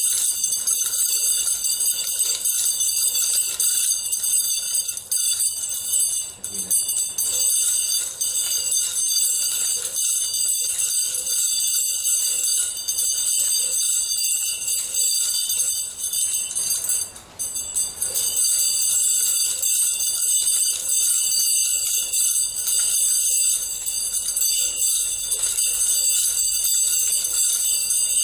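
Stainless steel 'bell' nunchaku being spun continuously, its metal chain and bell-capped ends jingling and ringing steadily with high bright tones, breaking off briefly about seventeen seconds in. This ringing is the noise that makes steel nunchaku loud compared with quiet wooden ones on cord.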